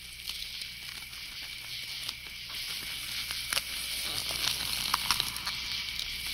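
Rain fading in: a steady hiss with scattered crackling drops, over a faint low hum.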